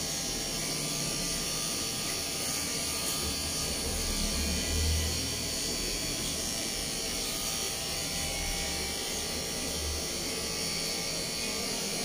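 Corded electric pet clipper running steadily as it trims the fur on a dog's face.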